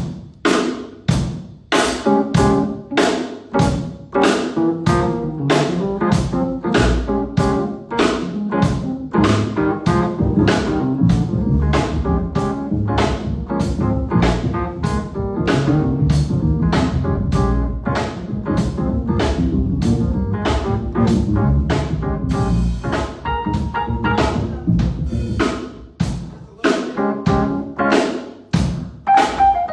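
A live band playing: a drum kit keeps a steady beat of kick, snare and hi-hat, with bass and keyboard chords over it. The band thins out briefly a few seconds before the end, then comes back in.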